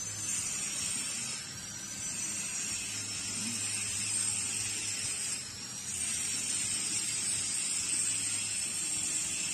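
CUT-40 inverter plasma cutter running idle: its cooling fan gives a steady hiss over a low hum, with a faint high whine that drifts slightly in pitch.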